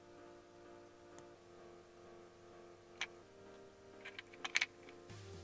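Small hard clicks of electronic parts on a perforated prototype circuit board: a single click about a second in, a sharper one about three seconds in, then a quick run of clicks and taps near the end as the board, fitted with push buttons and a headphone socket, is set down on a wooden desk.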